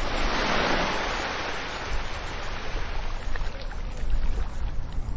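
Ocean wave breaking and washing up, its hiss swelling to a peak about half a second in and then fading away over the next few seconds, over a steady low rumble of surf.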